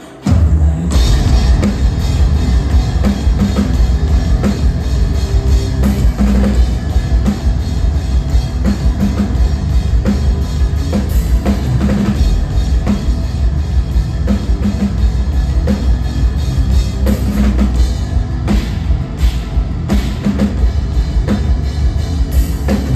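Live metal band playing the opening of a song at full volume: a drum kit with heavy bass drum, plus bass and guitars. It kicks in suddenly just after a brief hush.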